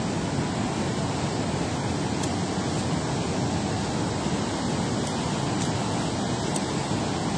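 Steady rushing of water pouring out below a dam spillway, an even, unbroken noise.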